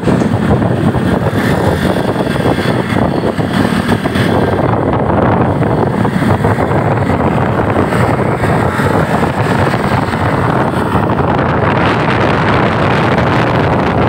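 Steady rush of wind on the microphone with the running and road noise of a moving vehicle.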